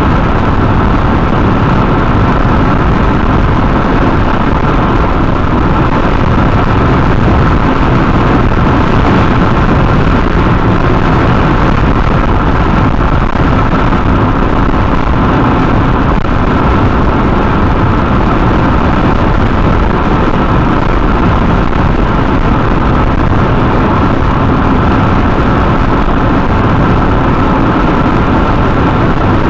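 Steady road and tyre noise with engine drone, heard from inside a car's cabin while it cruises along a highway.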